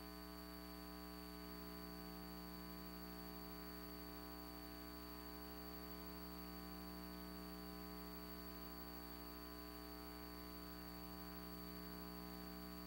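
Steady electrical hum with a faint hiss, several unchanging tones from low to high and no other sound.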